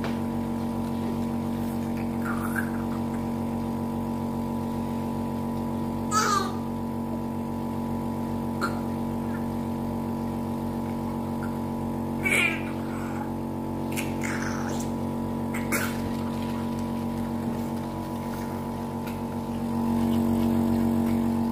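Electric suction machine's motor running with a steady hum while a newborn's airway is suctioned through a catheter, growing louder near the end. A few brief, high whimpers from the newborn break in over it.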